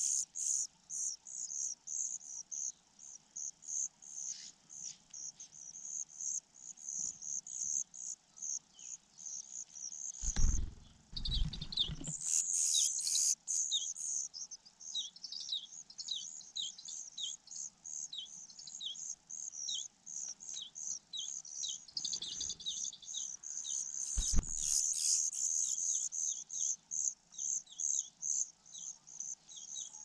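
Nestling songbirds begging at the nest with thin, high-pitched chirps repeated about three times a second, joined later by lower, falling chirps. A few dull low thuds break in, the loudest about ten seconds in and two more near the end.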